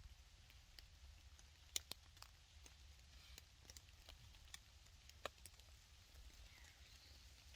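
Near silence: faint low room tone with a few scattered, irregular faint ticks.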